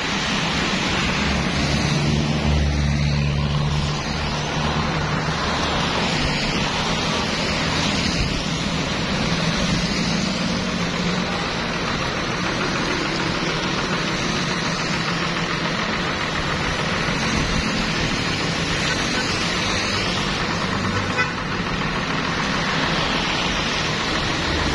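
Steady hiss of rain with traffic passing on a wet road; a vehicle engine hums low for a couple of seconds about two seconds in.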